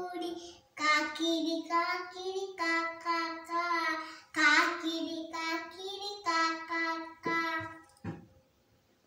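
A young boy singing a Malayalam children's action song on his own, without accompaniment, in short sung phrases; the singing stops about eight seconds in.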